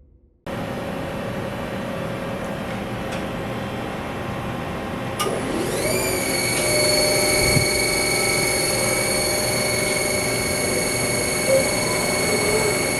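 Hurco VM10 CNC vertical machining center running with a steady machine hum. About five seconds in there is a click, then a whine rises and settles at a steady pitch, as the 10,000 RPM spindle comes up to speed.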